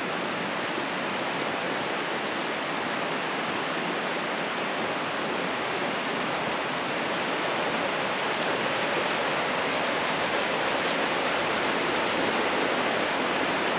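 Steady rush of a fast-flowing mountain stream, getting a little louder toward the end.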